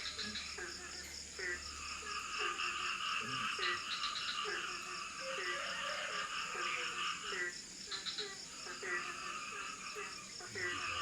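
Tropical forest night chorus: frogs croaking in short calls about twice a second over a dense, steady trilling of insects.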